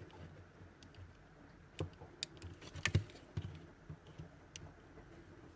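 Light, scattered clicks and taps of small plastic parts and a hand tool being handled while a steering-wheel button module is taken apart; a handful of sharp ticks, a couple of them louder in the middle.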